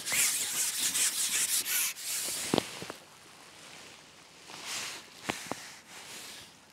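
A long carbon fishing pole sliding out through the hands, with a loud rubbing hiss and a few short sharp knocks about two and a half and five seconds in.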